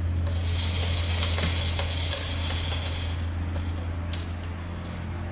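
Steady low machine hum with a high-pitched, ringing metallic whine over it for about three seconds, starting just after the start.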